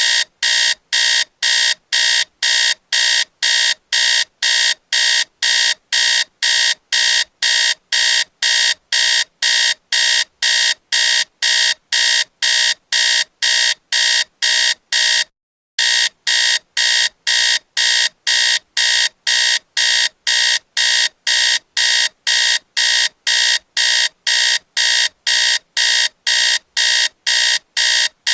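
Alarm clock beeping: short, high-pitched beeps repeating evenly at about two a second, with one brief break about halfway through.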